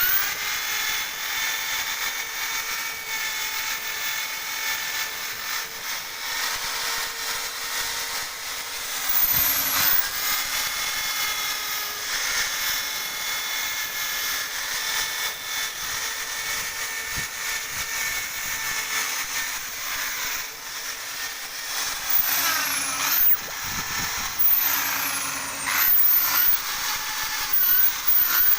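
Electric drill spinning a wire brush against a metal engine block: a steady motor whine over scratchy scrubbing. It grows louder for a moment about ten seconds in and a few times near the end.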